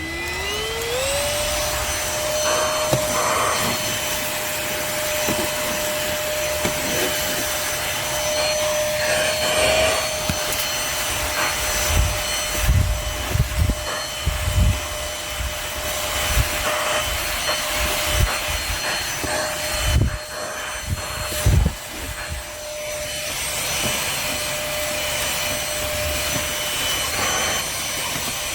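Cordless stick vacuum's motor spinning up to speed in the first second, then running with a steady high whine and rushing air as its small attachment tool is worked over surfaces. Scattered knocks and thumps of the tool against surfaces come between about twelve and twenty-two seconds in.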